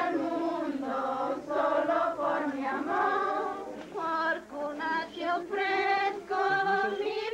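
A group of people singing a Christmas carol together, holding long notes in phrases with short breaks between them.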